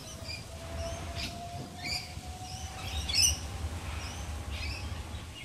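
Sydney Millennium (M-set) electric train pulling away, with a low rumble and a faint steady whine that fades out. Birds chirp several times over it, the loudest about three seconds in.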